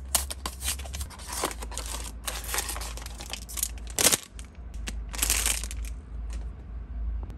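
Hands opening a small cardboard blind box and tearing open the foil bag inside: irregular rustling, crinkling and tearing, with one sharp snap about four seconds in.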